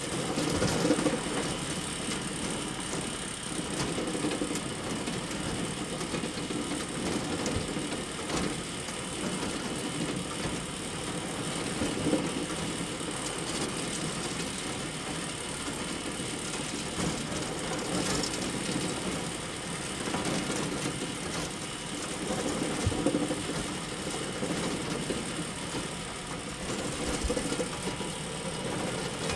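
Hay bale elevator running: the steady mechanical clatter of its chain conveyor, swelling now and then, with a few sharp clicks.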